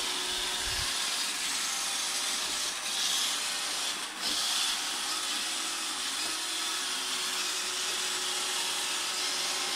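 iRobot Roomba 786p robot vacuum running, its vacuum motor and brushes making a steady hissing hum.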